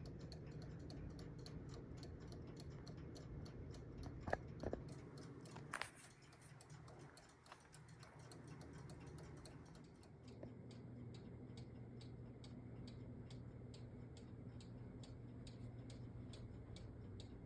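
A mechanical clock ticking faintly and steadily, with a couple of light knocks about four and six seconds in.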